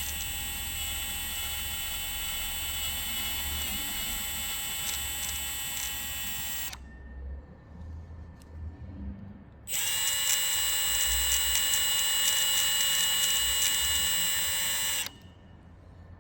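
Small handheld power tool running at high speed with a steady whine, in two runs of about five to seven seconds each that start and stop sharply, the second slightly louder. It is clearing silicone out of the bolt holes in the accumulator's end cap.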